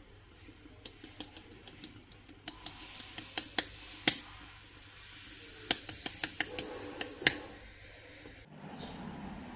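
Irregular sharp clicks and taps, a few a second, the loudest about four seconds in and again near seven seconds; a duller low rustle takes over near the end.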